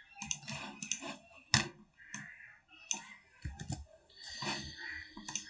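Computer keyboard and mouse clicking: irregular light taps and clicks, coming faster near the end as text is typed in.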